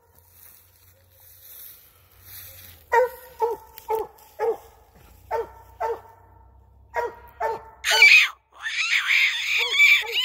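Hound barking treed, the tree bark that says it has its quarry up the tree. About eight short barks come after a quiet start, then a longer, higher, wavering cry near the end.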